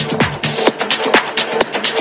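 Electronic house music played from vinyl on a DJ setup: a steady four-on-the-floor beat at about two beats a second with a held tone over it. About half a second in, the deep kick and bass drop away, leaving the higher percussion ticking on.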